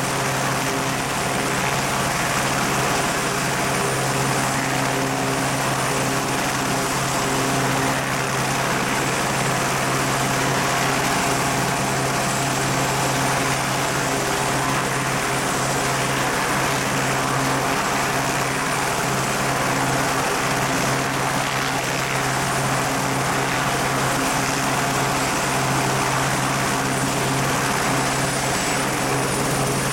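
Airbus H125 helicopter running on the ground with its rotors turning: a steady high whine from its Arriel 2D turboshaft over a continuous low rotor hum. The high whine edges up in pitch near the end.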